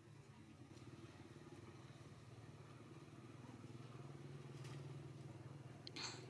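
Near silence: a faint, steady low hum, growing slightly louder midway, with one brief sharp click about six seconds in.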